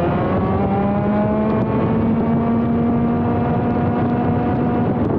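ROK GP Junior 125cc single-cylinder two-stroke kart engine under full throttle, its pitch climbing and then holding high while rising slowly. The note drops away just before the end.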